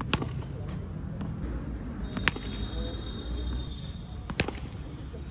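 Cricket bat striking wet tennis balls in a hitting drill: three sharp knocks about two seconds apart.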